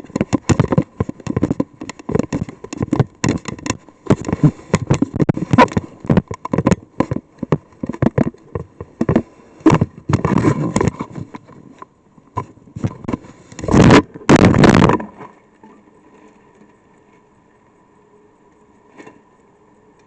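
Raindrops striking the weather probe close to its microphone: dense, irregular sharp taps, with two loud rushing surges about two-thirds of the way in. After that the taps stop and only a faint steady electrical hum remains.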